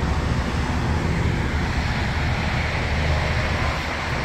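Steady low rumble of idling diesel trucks, with wind hissing and buffeting on the microphone.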